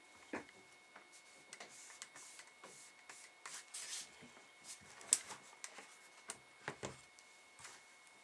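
15-inch MacBook Pro making irregular clicking sounds, a dozen or so sharp clicks at uneven intervals with a few soft swishes between them: the unwanted clicking noise the laptop's owner is demonstrating. A faint steady high whine runs underneath.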